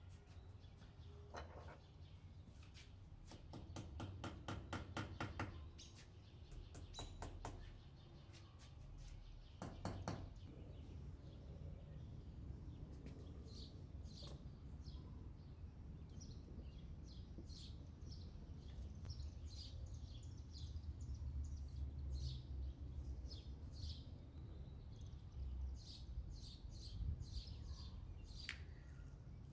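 Small birds chirping in short, repeated high notes, over a low steady background rumble. Earlier, a run of rapid clicks.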